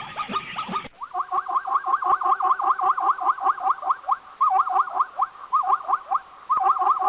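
Zebra calls: a rapid series of short, squeaky, pitch-sweeping barks, about five or six a second with a few brief pauses.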